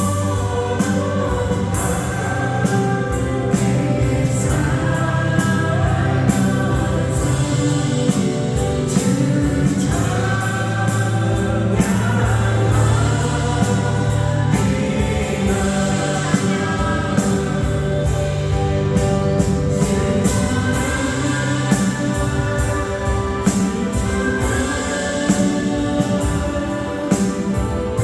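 Worship music: several voices singing a Christian praise song together over a band with bass and a steady drum beat.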